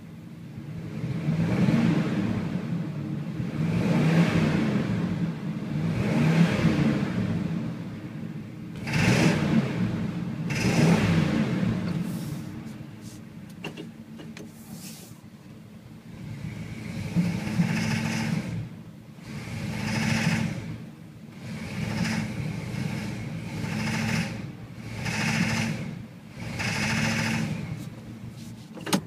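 1978 Chevrolet K10's 350 small-block V8 being blipped from idle over and over, about every two seconds, settling back to idle for a few seconds midway. It knocks as it comes up from idle under throttle, which the owner suspects is rod knock.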